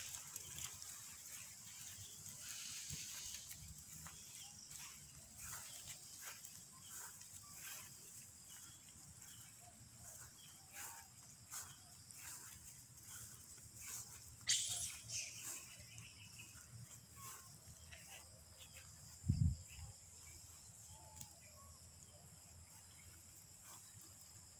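Quiet outdoor ambience over a steady high hiss, with scattered faint short calls and squeaks from a troop of macaques. A sharp high squeal comes about halfway through, and a short low thump a few seconds later.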